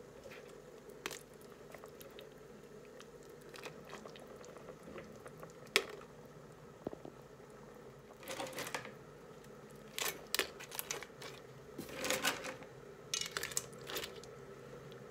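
Pieces of rock crab in their shells being dropped into a pot of curry broth and pushed down by hand: sharp clicks and short crunchy rattles of shell against shell and against the pot, coming in several bursts in the second half, over a faint steady hum.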